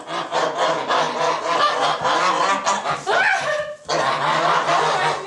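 A flock of domestic geese honking loudly, many calls overlapping with hardly a pause, broken by a short lull just before four seconds in.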